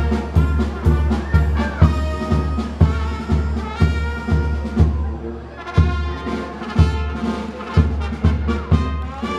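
Brass band music over a steady bass beat, a little over two beats a second; it thins out briefly about five seconds in.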